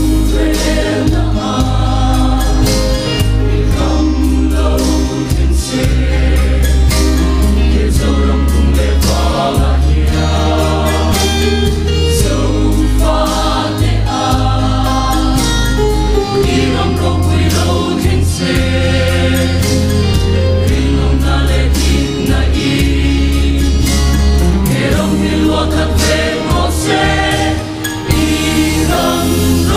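Mixed choir of men's and women's voices singing a hymn in parts, over a sustained low bass accompaniment whose notes change every couple of seconds.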